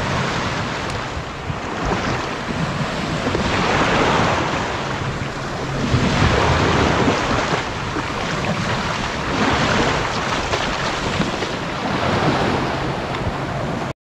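Small waves breaking and washing up the beach around the bow of an inflatable boat, swelling and ebbing every couple of seconds, with wind on the microphone.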